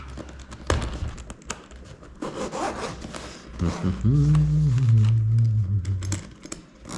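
Zipper on a DJI Mini 2 Fly More shoulder bag being pulled open by hand, with rasping, rubbing and clicks from the zipper and fabric. A low steady hum, the loudest sound, lasts about two seconds past the middle.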